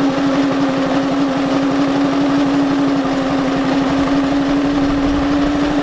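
Go-kart engine running steadily at a constant speed, with an even, rapid low chugging under a steady hum.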